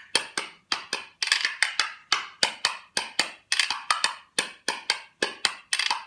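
A pair of maple wooden spoons played as a rhythm instrument, clacking together in a quick steady rhythm of about five strokes a second, often in close pairs.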